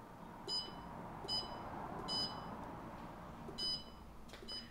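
Keypad of an electric heat-treat oven's digital controller beeping five times, short and high-pitched, at uneven intervals as its buttons are pressed to set a tempering temperature.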